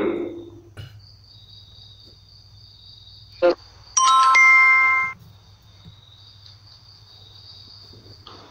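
A short electronic chime, a chord of several steady tones lasting about a second, sounds about four seconds in and cuts off abruptly, just after a brief blip. Crickets chirr steadily underneath.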